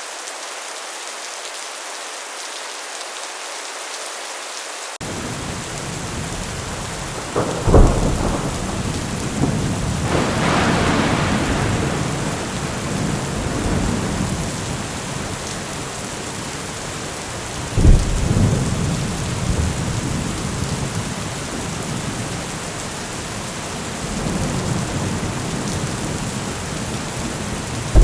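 Steady heavy rain on a metal roof, with thunder: low rumble comes in about five seconds in, then two loud thunderclaps, around eight and eighteen seconds in, each rolling on into rumble, and another clap right at the end.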